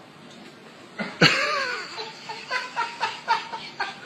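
A man laughing loudly, starting about a second in and going on in quick repeated pulses.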